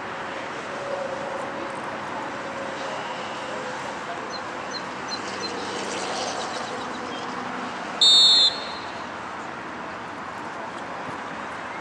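A referee's whistle blows one short, shrill blast of about half a second, a little past the middle: the signal for the penalty kick to be taken. Under it runs a steady murmur of distant voices.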